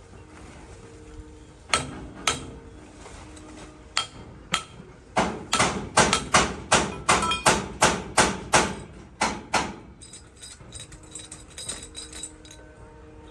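Hammer blows. A couple of single strikes come first, then a quick run of about fourteen loud blows at roughly three a second, then lighter tapping and clicks near the end.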